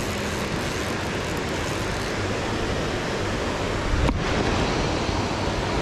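Steady rush of flowing spring-stream water, with a single short knock about four seconds in.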